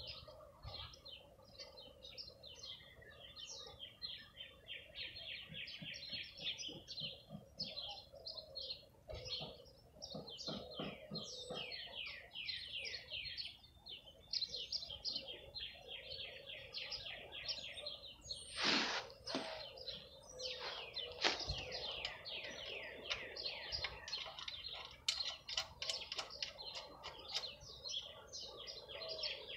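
Small birds chirping almost continuously, in quick runs of short falling notes. A couple of sharper, louder sounds come about two-thirds of the way in.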